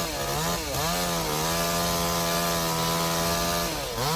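Chainsaw running at high speed, cutting into a large tree. Its pitch drops and recovers twice about half a second in and once more near the end, as the chain bogs in the wood or the throttle is let off.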